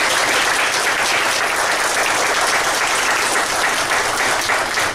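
A large group of people applauding, a steady round of clapping.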